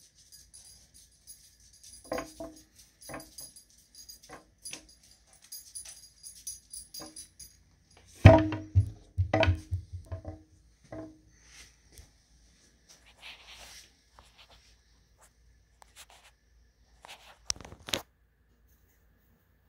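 Light, pulsing jingling for the first several seconds over scattered clicks, then a loud cluster of knocks and thuds about eight seconds in, and a couple more sharp knocks near the end.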